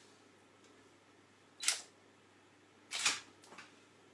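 Camera shutter sounding as photos are taken: two sharp clicks about a second and a half apart.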